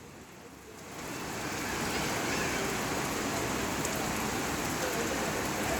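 Pre-monsoon rain pouring down as a steady hiss that swells over the first second or two and then holds even.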